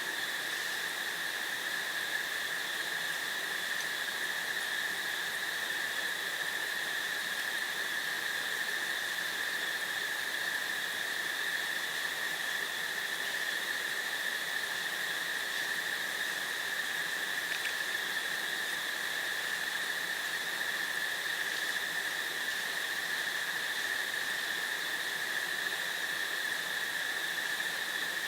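Steady chorus of crickets, an unbroken high pitched drone with no pauses.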